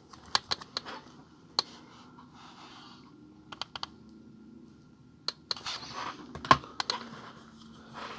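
Scattered light clicks and taps, a few at a time with pauses between, over soft rustling from handling at a table.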